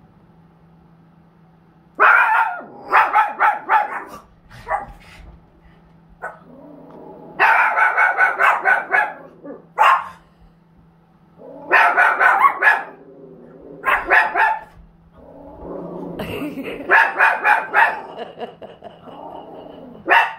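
Small white dogs barking in rapid volleys, several bursts of quick barks with short pauses between them. A low steady hum runs underneath.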